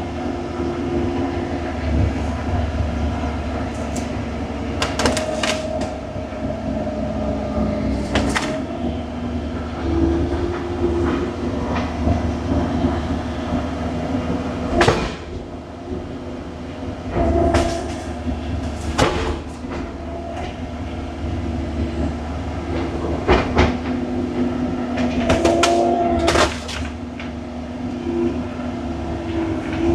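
Excavator's diesel engine and hydraulics running steadily, with tones that step up and down in pitch as the controls are worked. Several sharp clanks and knocks are spread through the run.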